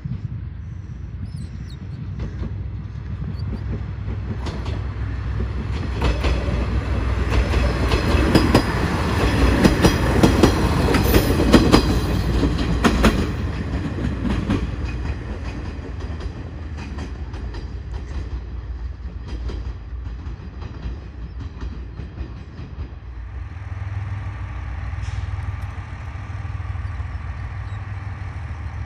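Passenger train passing close by, its wheels clattering over the rail joints as it approaches, loudest about 8 to 13 seconds in, then fading as it goes away. About 23 seconds in, a steady low hum from another train standing or moving slowly takes over.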